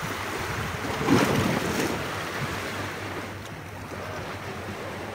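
Sea waves washing against a rocky shore, with wind rumbling on the microphone; the wash swells about a second in and eases off again.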